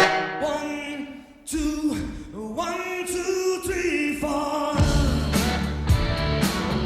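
An arena goal horn's tail dies away at the start, then the goal song plays: pop-rock music with singing. A full band with drums comes in about five seconds in.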